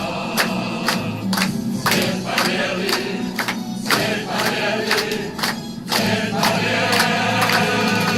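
Choir singing to music, with steady rhythmic clapping at about two or three claps a second.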